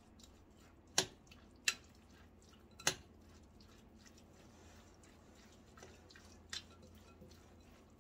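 Spoon stirring a salad dressed with sour-cream sauce in a glass bowl: soft wet squelching, with four sharp clicks of the spoon against the glass.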